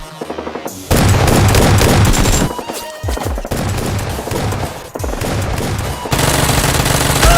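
Bursts of rapid automatic gunfire, loudest about a second in and again near the end, over background music with a low beat.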